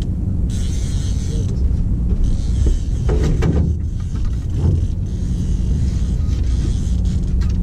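Steady low rumble of a boat's outboard motor and wind on an open boat, with patches of hiss.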